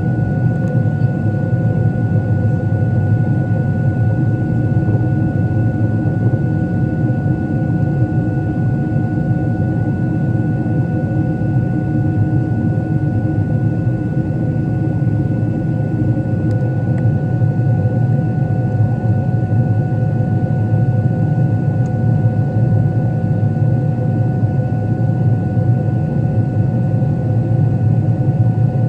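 Steady engine drone of a Boeing 777 in flight heard from the cabin: a low rumble with a constant high whine of engine tones above it, unchanging throughout.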